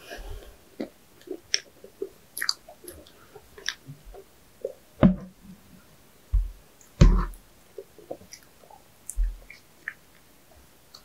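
Close-miked chewing of sweets: soft wet mouth clicks and smacks, with a few heavier low thuds about five, seven and nine seconds in.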